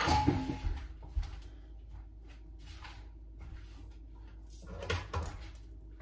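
Kitchen handling noise from a glass jar and its contents: a clatter in the first second, then quiet, then a few short knocks near the end.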